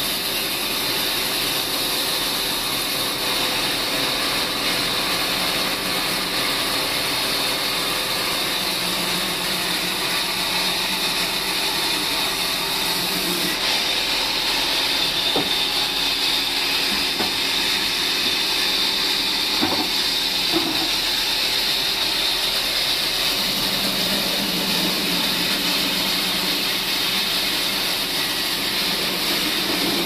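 Table band sawmill running steadily, its band blade ripping wooden planks lengthwise as they are fed by hand: a continuous hiss with a high steady tone over it.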